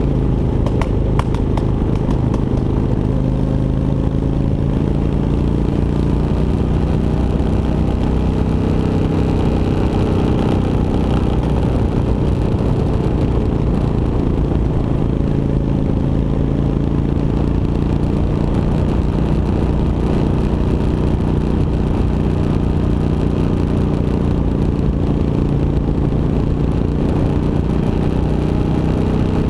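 Motorcycle engine running steadily at an even road speed.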